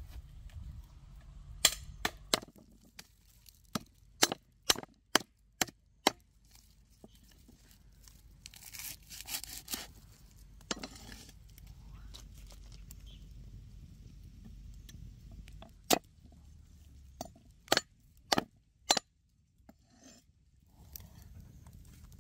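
Sharp knocks and snaps in two irregular clusters, with a short rustle about nine seconds in.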